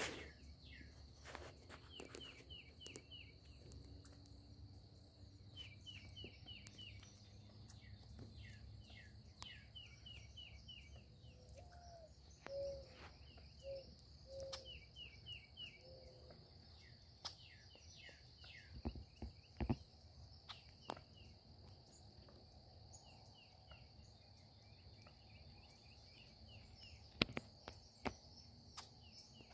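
Faint meadow ambience: a songbird repeats a short burst of quick falling notes every couple of seconds over a steady high insect drone. A run of five low hooting notes comes a little before the middle, and a few sharp clicks, probably handling, come later.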